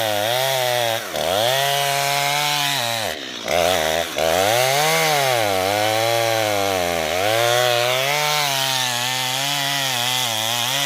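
Chainsaw cutting into a tree trunk to fell it, the engine bogging down under load and revving back up several times, with sharp dips about a second in, around three to four seconds in, and about seven seconds in, then dropping off right at the end as the throttle is released.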